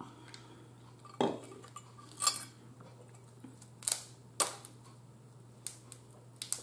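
Tableware clinks and knocks as crab is handled over a ceramic dinner plate with a fork on it: about six short, sharp taps spread out, the loudest two a second or so in, over a faint steady low hum.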